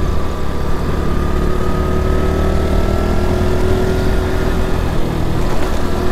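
Honda Pop 110i's small single-cylinder engine running at a steady cruise, its pitch slowly rising as the bike gains a little speed, under a heavy low rumble of wind and road noise.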